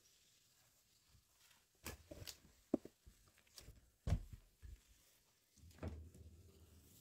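Irregular soft knocks and thuds in a quiet room, as of someone stepping about and handling objects. The loudest thud comes about four seconds in, and there is a sharper knock with a short ring just before.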